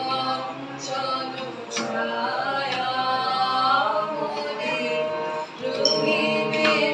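A woman singing a slow, melodic song with long held notes, accompanying herself on an electronic keyboard.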